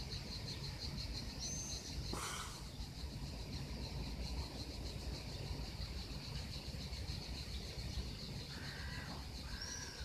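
Outdoor summer ambience: insects chirping in a steady, rapidly pulsing high trill, over a low rumble. A few short bird calls come near the end, and there is a brief noise burst about two seconds in.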